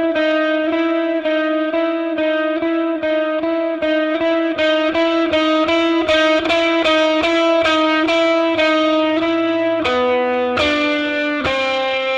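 Instrumental music: an electric guitar with effects plays a steady run of evenly spaced notes over a held note, shifting to a different pitch about ten seconds in.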